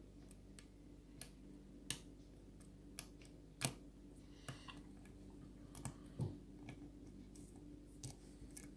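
Faint, scattered metallic clicks of a lock pick working the pins of a pin tumbler lock under light tension, a few single ticks spread over several seconds, over a low steady hum.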